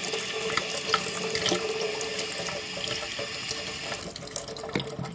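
Kitchen tap running water into a small clear plastic test-tube container held under it, filling it to the top. The rush of water drops away about four seconds in.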